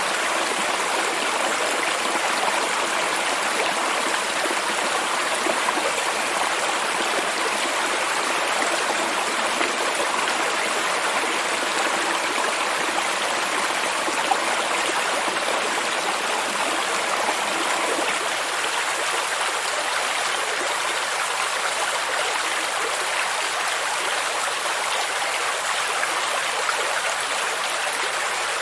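Steady rushing of a stream and waterfall, an even noise with no breaks.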